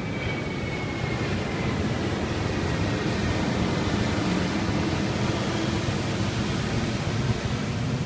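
Breaking ocean surf and whitewater, a steady wash, under a low gusty wind rumble on the microphone.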